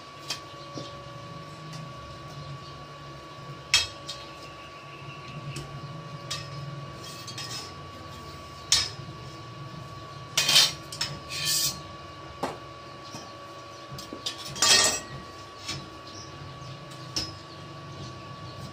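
Scattered metallic clinks and knocks of steel pieces being handled and struck during welding work on a steel fence, with a couple of short clattering clusters a little past the middle and about three quarters through, over a steady faint high whine.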